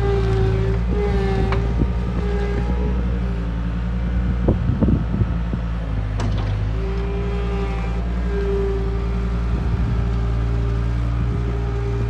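Case 410 skid steer loader's diesel engine running steadily as the machine drives about, with a few short clanks about halfway through.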